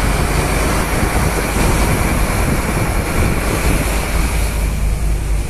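Scania P310 flatbed tow truck on the move: steady, loud wind and road noise with the diesel engine rumbling underneath, the wind buffeting the microphone held by the open cab window.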